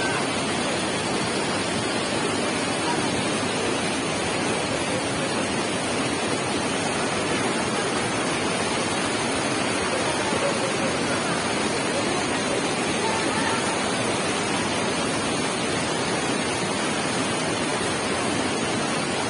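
A rain-swollen mountain stream in flood, its muddy water rushing over and between boulders: a steady, unbroken noise of fast water.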